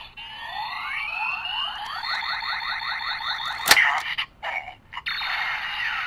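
Electronic sound effects from a CSM Kamen Rider Kabuto Zect Driver toy belt's speaker: a fast pulsing whir rising in pitch, a sharp click a little past halfway, then a steady electronic tone pattern.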